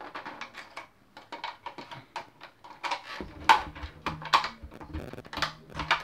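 Irregular clicking and clattering of a Nerf blaster's hard plastic parts being handled and worked apart, getting louder and busier about halfway through.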